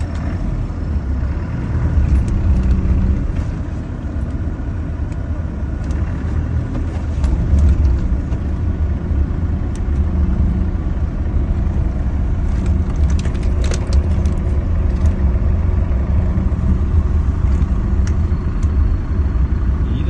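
Off-road vehicle driving through snow, heard from inside the cabin: its engine and tyres run steadily, with a cluster of light clicks about two-thirds of the way through.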